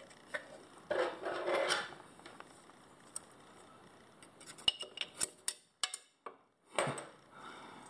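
Thin metal pry tool scraping and clicking against the old crankshaft oil seal and crankcase of a Honda GCV160 engine as the worn-out seal is worked loose: a rasping scrape about a second in, a run of sharp clicks past the middle, and another scrape near the end.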